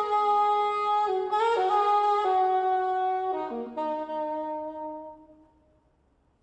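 Solo alto saxophone playing a slow melody of long held notes, which dies away about five seconds in.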